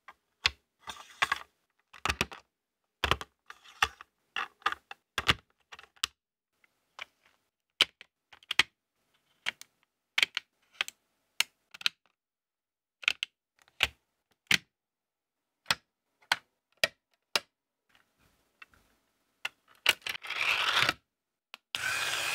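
Lego Technic plastic pieces being pressed and snapped together by hand: a run of sharp, irregular plastic clicks, a few per second with gaps. Near the end comes a second or so of steadier rushing noise.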